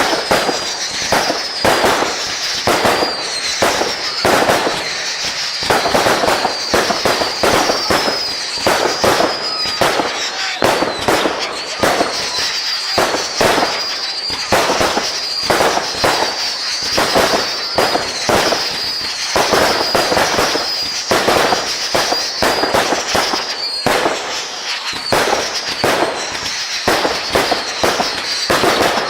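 A fireworks display going off non-stop: a rapid, dense barrage of bangs and crackles. A high, wavering whistle-like tone sounds over it most of the time.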